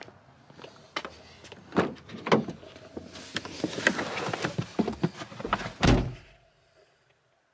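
A car door being handled: scattered clicks and knocks, then a heavy shutting thump about six seconds in.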